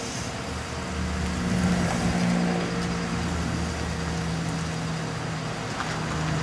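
An SUV's engine running as the vehicle pulls away slowly, a low steady hum.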